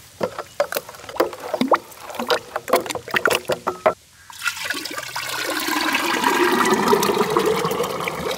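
Hand mixing a runny tamarind and palm-jaggery chutney in a steel bowl: quick wet squelches and slaps. About four seconds in these stop, and a steady pour of the thick chutney from a steel pot into a glass jar follows, growing louder as it runs.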